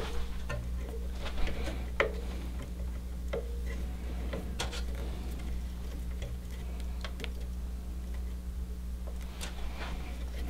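Scattered small clicks and taps of hands working watercooling fittings and tubing, over a steady low hum.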